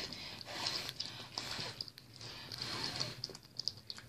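Soft wet smacking and clicking from a Lhasa Apso mother licking and chewing at her newborn puppy during whelping, in quick irregular runs of several clicks a second.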